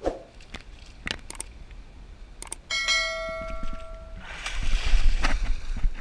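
A bell-like ring, held for about a second and a half and dying away, among scattered knocks and clicks, followed by a burst of rushing, rumbling noise.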